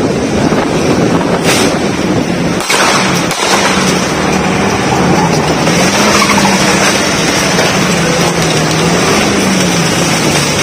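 Car engine and road and wind noise heard from inside a fast-moving car, the engine note rising and falling as it speeds along. Two sharp knocks in the first three seconds.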